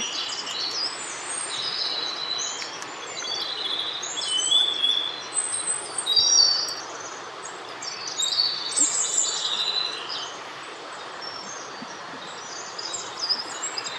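Small songbirds chirping, many short high calls scattered throughout, over the steady rush of a mountain creek.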